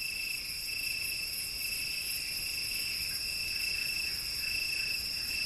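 Crickets trilling steadily, a continuous high-pitched chirring over a faint hiss: a night-time insect chorus.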